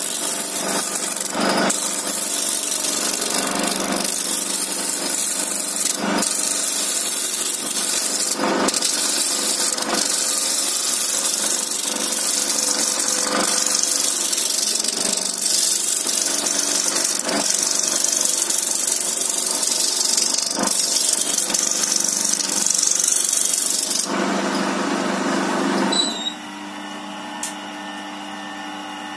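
Wood lathe running with a hand-held turning tool cutting into a spinning log blank: a loud, steady hissing scrape over the motor's hum, with a few sharp knocks. Near the end the cutting stops and only a quieter steady hum remains.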